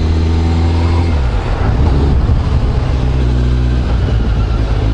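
Kawasaki Ninja 1000's inline-four engine running under way. Its note drops about a second in as the throttle is eased for a curve, runs lower through the bend and picks up again near the end.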